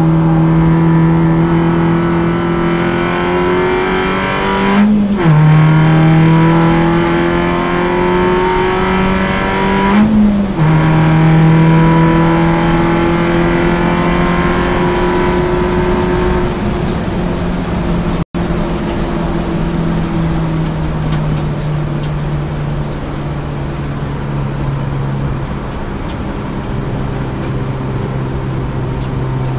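Alfa Romeo Twin Spark four-cylinder race car engine heard from inside the car, pulling hard with its pitch climbing and two quick upshifts about five seconds apart. It then eases off to a lower, steadier note, with a momentary cut in the sound about two-thirds of the way through.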